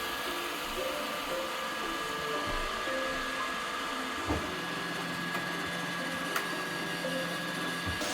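Roomba robot vacuum's motors running with a steady whir and hum, with a dull knock about four seconds in.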